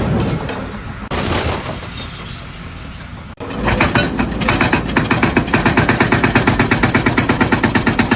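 A rough, noisy stretch with a sharp burst about a second in, then, after a sudden cut about three and a half seconds in, a machine pounding rapidly and evenly at about five strokes a second.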